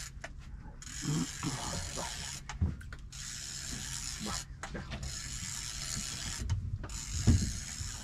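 Fishing reel being wound in, its gears whirring in spells with several short pauses.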